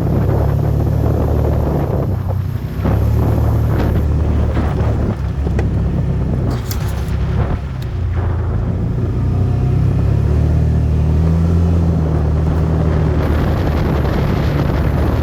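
A vehicle's engine running steadily while riding, its pitch shifting a little as the speed changes, with wind buffeting the microphone.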